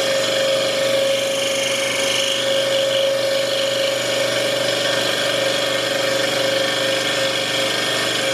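Scroll saw running steadily, its blade cutting V-shaped notches into a thick block of cherry hardwood.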